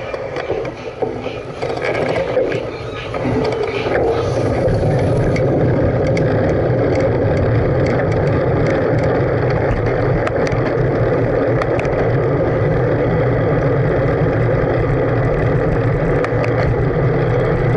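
Steady rushing wind on the microphone and tyre rumble from a camera riding on a moving bicycle, rising to a constant loud level about three seconds in as the bike picks up speed.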